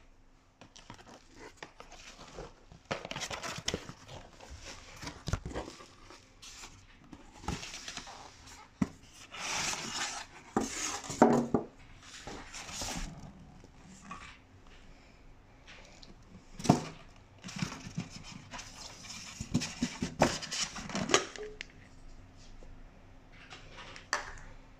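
Plastic parcel wrap and a cardboard box being torn open and handled, rustling and crinkling in irregular bursts with occasional sharp knocks.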